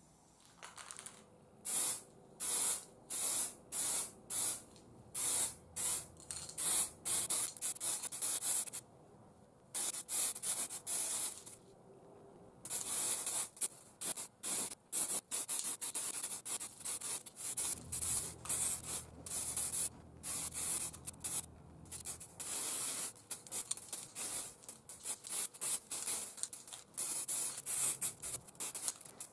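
Aerosol spray-paint can hissing in short bursts, about one a second at first, then in longer sprays close together from about halfway through. A low hum joins for a few seconds in the middle.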